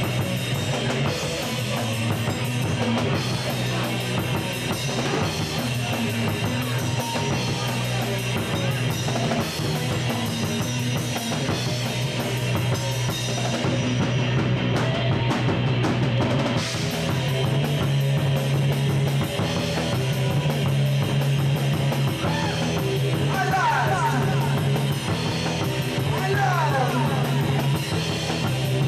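A live rock band playing loud, heavy music: electric guitars over a pounding drum kit, continuous and dense.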